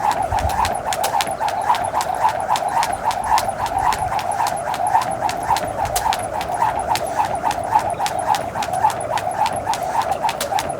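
Jump rope spinning: a steady whir through the air with a sharp tap on the ground about three times a second, kept up without a break.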